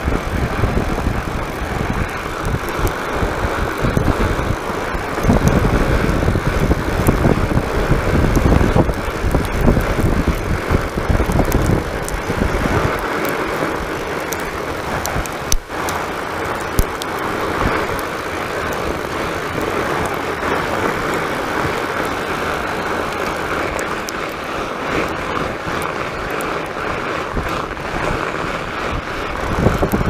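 Fat bike rolling along a packed-snow trail, heard from a camera mounted on the bike: steady noise from the wide knobby tire on snow with scattered ticks and knocks over the bumps. A heavy low rumble on the microphone for about the first twelve seconds eases after that.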